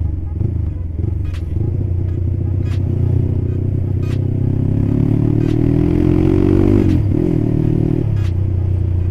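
Motorcycle with a cheap aftermarket Purbalingga-made exhaust pulling under throttle. The exhaust has a choppy, helicopter-like beat. The engine note climbs for a couple of seconds, then drops sharply about seven seconds in as the rider shifts or rolls off the throttle, and carries on steadily.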